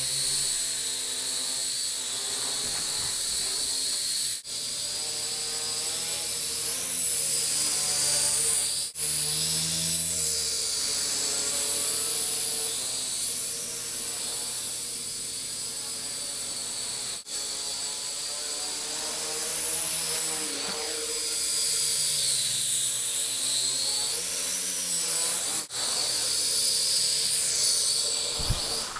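Blade mQX quadcopter in flight: a steady whine and buzz from its motors and propellers, rising and falling in pitch as the throttle changes. The sound cuts out abruptly for a moment a few times.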